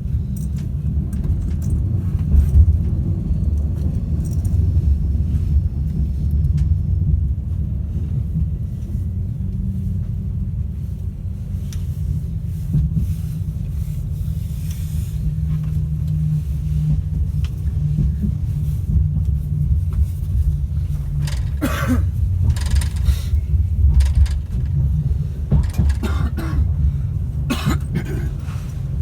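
Class 390 Pendolino electric train standing at a platform, its onboard equipment giving a steady low hum and drone. A few short noises from inside the carriage come about two-thirds of the way in and near the end.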